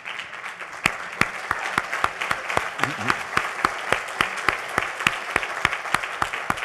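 Audience applauding, a dense steady clatter of many hands with single sharp claps standing out.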